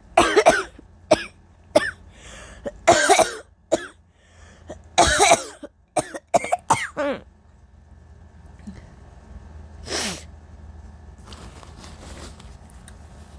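A woman coughing with allergies: a fit of short, hard coughs in quick clusters through the first seven seconds or so, then one more short burst about ten seconds in.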